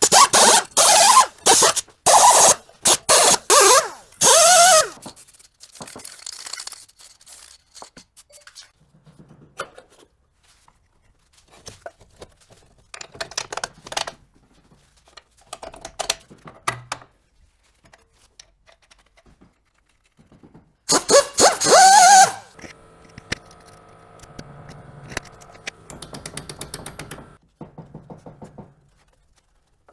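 Workshop tool noise during strut work: a run of loud clattering bursts with squealing overtones over the first few seconds and again about 21 seconds in, with quieter knocks and scrapes of metal parts between.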